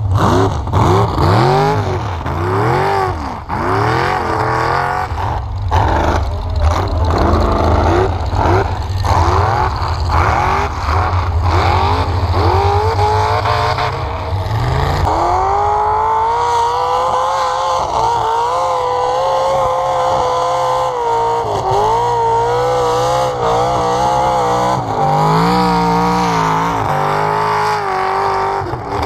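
Off-road truck engine revving hard, its pitch rising and falling in repeated surges, then held high and wavering through the second half as the truck spins on snow.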